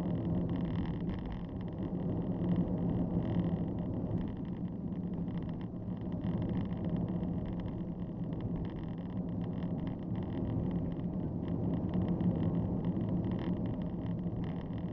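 Steady drone of a moving road vehicle's engine and road noise, with faint rattles throughout.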